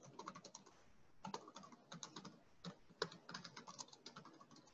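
Faint typing on a computer keyboard: quick runs of keystrokes with short pauses between them.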